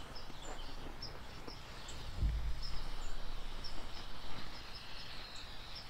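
Lit emergency road flare burning with a steady hiss while held against a fiberglass welding blanket. There is a brief low rumble a little over two seconds in.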